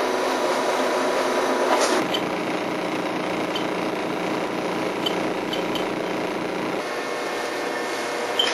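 A small motor running steadily, with a few faint ticks over it. Its lower hum drops away about seven seconds in.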